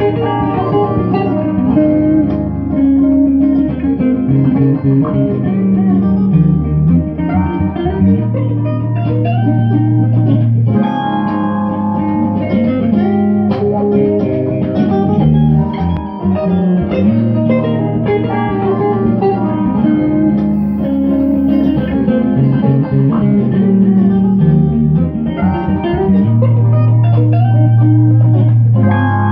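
Electric guitar and bass guitar playing a bluesy instrumental, with sustained bass notes that change every second or two under guitar chords.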